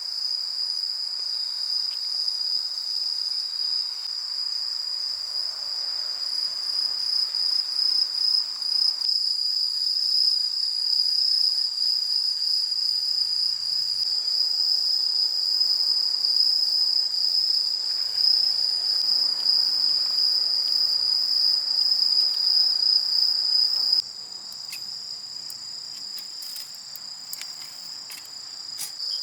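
Insects trilling in a steady, high-pitched chorus that never pauses. A few light clicks of handled gear sound near the end.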